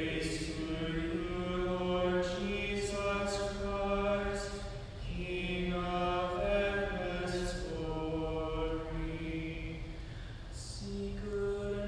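A male cantor singing the responsorial psalm in slow chant, holding long notes with brief breaths between phrases.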